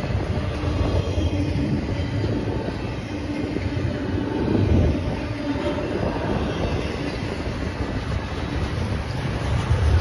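Double-stack intermodal freight cars rolling past: a steady, fairly loud rumble and clatter of steel wheels on the rails.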